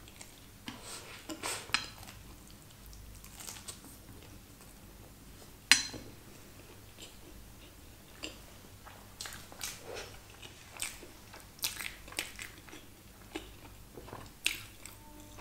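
Close-miked chewing of a bite of fried Schezwan chicken lollipop: soft crunches and wet mouth sounds scattered through, with one sharp click about six seconds in.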